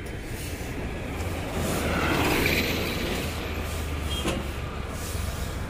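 Moving road vehicle: a steady low engine hum with road noise, swelling louder about two seconds in and easing off again.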